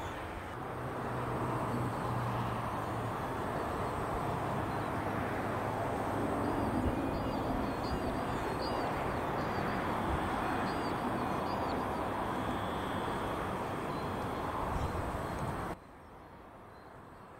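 A train running past with a steady rumble and rush of wheel noise, and a low engine hum in the first few seconds. Birds chirp faintly in the background. The sound cuts off abruptly near the end.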